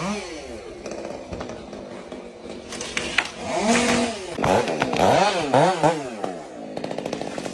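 Chainsaw engine being revved, its pitch climbing and dropping again and again in quick throttle blips.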